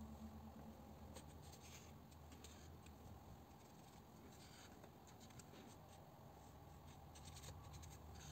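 Faint soft strokes of a watercolour brush brushing paint across watercolour paper, several brief scratchy swishes at uneven intervals over a low steady hum.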